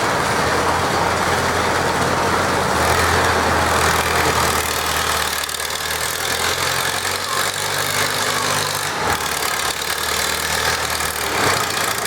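Farm tractor engine running steadily, its note shifting a few times.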